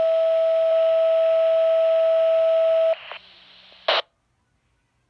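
Two-tone sequential pager alert for a fire/EMS dispatch: a steady tone steps slightly lower right at the start and holds for about three seconds before cutting off. Then comes a brief hiss of radio static and a short sharp burst of squelch noise about four seconds in.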